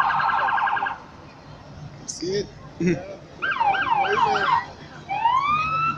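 Electronic emergency-vehicle siren cycling through its patterns: a fast warble for about the first second, a run of quicker up-and-down sweeps around the middle, and a slow rising wail near the end. A steady low hum runs underneath.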